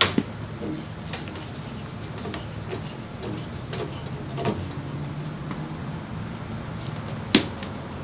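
Scattered knocks and clicks of wooden cabinet parts and tools being handled during assembly: a sharp knock right at the start, a softer one about halfway, and the loudest knock near the end, over a steady low hum.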